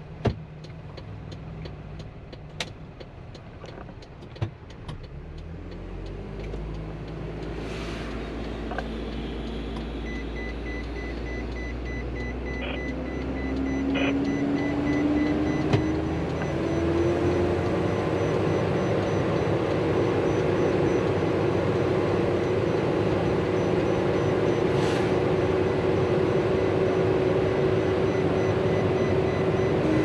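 Isuzu NPS truck's diesel engine and road noise heard inside the cab while driving. The engine grows louder and rises in pitch about halfway through, then holds a steady drone. A few sharp clicks come in the first seconds.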